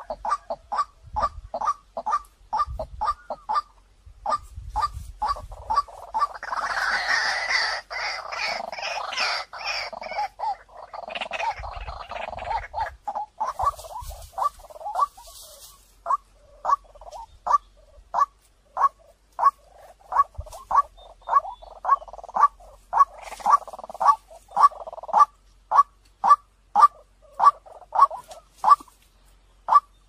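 White-breasted waterhen calling: a steady run of short repeated 'kwak' notes, about two a second. From about six to thirteen seconds in they are overlaid by a denser, harsher babbling chorus.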